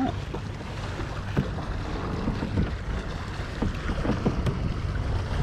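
Wind buffeting the microphone in a steady low rumble, with a few scattered short knocks.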